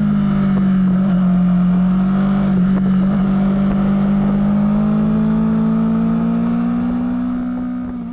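Honda CBR250RR with its stock exhaust running at a steady engine speed. The pitch sags slightly, then rises a little about five seconds in, and the sound fades out toward the end.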